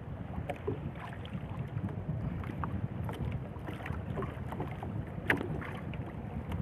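Wind rumbling on the microphone on a small fishing boat at sea, with scattered light clicks and knocks from the catch and handline being handled in the boat, the sharpest one about five seconds in.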